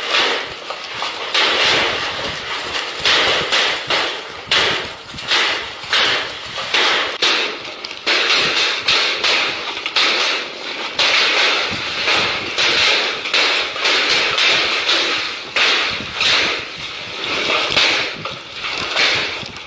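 Hailstorm: hailstones pelting down hard, a dense, irregular clatter of impacts that keeps swelling and easing.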